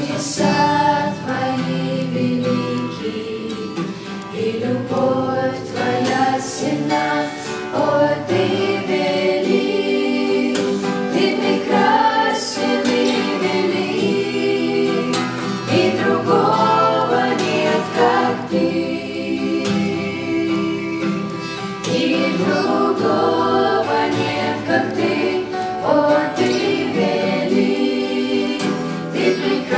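A family of adults and children singing a Christian worship song in Russian together, to a strummed acoustic guitar.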